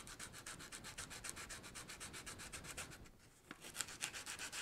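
Sandpaper rubbed by hand over a convertible top, smoothing down a cured super-glue repair: quick, even back-and-forth strokes, with a brief pause about three seconds in.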